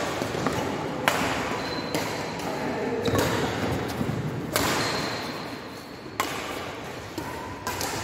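Badminton rackets striking a shuttlecock in a rally: several sharp pops spaced about a second or more apart, each echoing briefly in a large hall.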